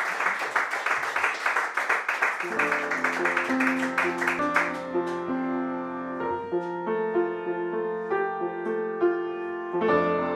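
Audience applause that dies away about halfway through as a piano starts to play, then solo piano playing a slow melody over sustained chords.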